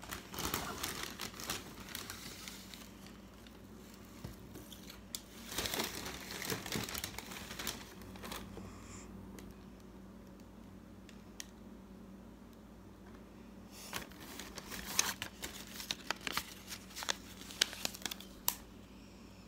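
Thin plastic carrier bag crinkling and rustling in several bursts as it is handled, with sharper crackles near the end.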